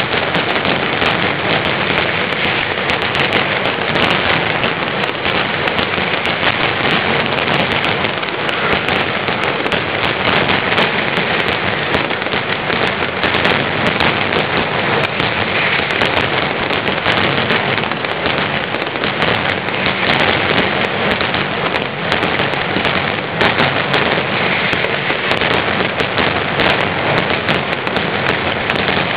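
Mascletà firecracker barrage: masclets going off so rapidly that the individual bangs merge into one continuous crackle, steady in loudness.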